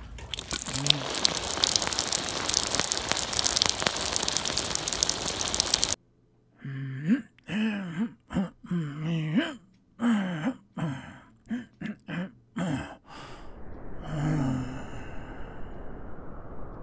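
A steady loud hiss of noise, cut off suddenly; then a person's voice in short broken sounds with silent gaps between them, with no clear words, and a fainter hiss near the end.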